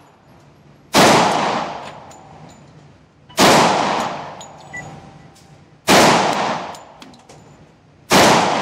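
Springfield XDM 4.5 pistol in 10mm fired four times, slow aimed shots about two and a half seconds apart. Each report rings on in the echo of an indoor range.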